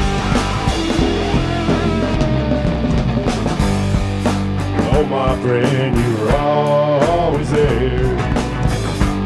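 Rock band playing live: electric guitars over bass and drums, an instrumental passage with a wavering, bending lead line through the middle.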